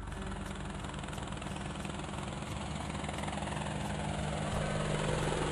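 Helicopter sound effect: rotor and engine running steadily, growing a little louder as the helicopter approaches.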